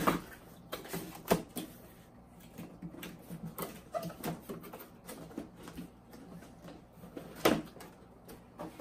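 Cardboard box being opened by hand: irregular rustles, scrapes and sharp snaps as the flaps are pulled open, the loudest snap about seven and a half seconds in.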